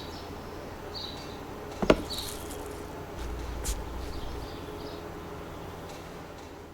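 Faint background ambience with a few short high chirps and a sharp click just before two seconds in.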